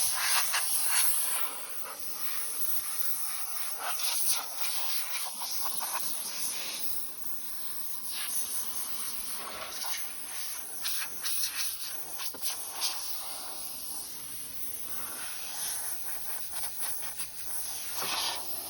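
Hissing and scratchy scraping noises of dust being cleaned out of a car's boot, loudest in the first second or so.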